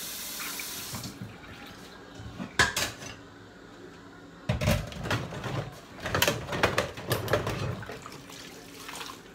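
Kitchen tap running into a cooking pot, shut off about a second in. Then a few sharp knocks and a few seconds of clattering as the pot and kitchenware are handled.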